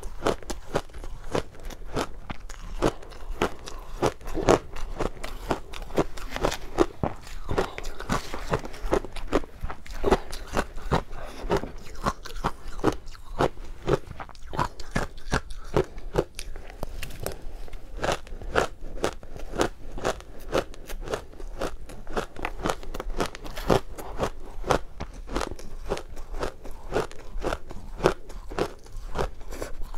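Close-miked biting and chewing of matcha-flavoured powdery shaved ice: a rapid run of crisp crunches, several a second.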